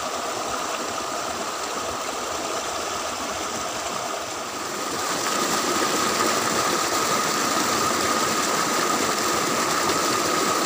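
Stream water rushing over rocks and a small waterfall, a steady noise that gets a little louder about halfway through. A faint steady high tone runs over the water.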